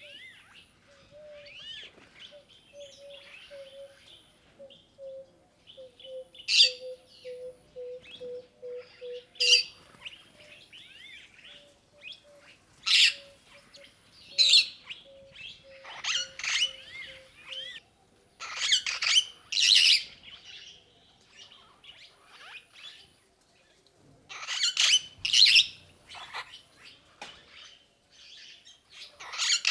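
Several birds calling. High chirps and whistles run throughout, loud harsh calls come in short runs from about six seconds in (the loudest just before and after the midpoint and again near the end), and a series of low, evenly spaced hooting notes runs through the first half.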